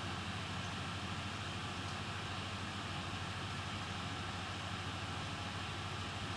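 Steady low hum under a constant hiss, with no distinct events: background noise of the workbench recording.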